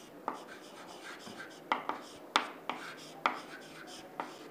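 Chalk writing on a chalkboard: a quick series of about seven sharp taps and short scratchy strokes as letters are written.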